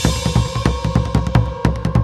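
Background music: a fast drum-kit beat with kick, snare and cymbals over a held synth note.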